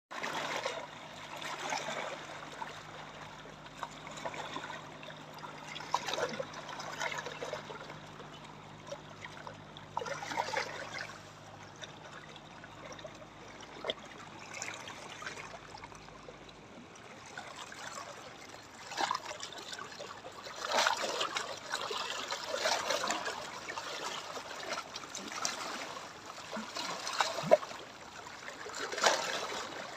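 Sea water lapping and splashing in small irregular surges, with a faint steady low hum in the first half.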